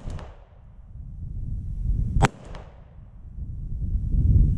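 A SIG P320 X5 Legion 9mm pistol firing handloaded rounds primed with toy gun caps. The tail of one shot comes right at the start and another shot about two seconds in, each followed by two faint cracks within half a second. The cap-primed rounds fire and cycle without malfunction.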